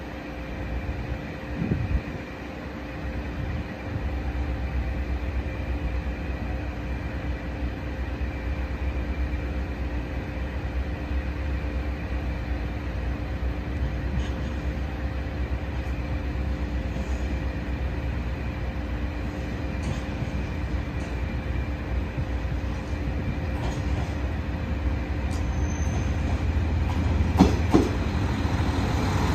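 KiHa 185 diesel multiple unit pulling into a station. A steady low diesel hum runs throughout and grows louder over the last few seconds as the train draws near, with wheels clacking over rail joints near the end.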